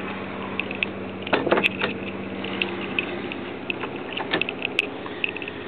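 Handling noise: scattered light clicks and knocks over a steady low hum, with a cluster of louder knocks about a second and a half in and a sharp click near the end.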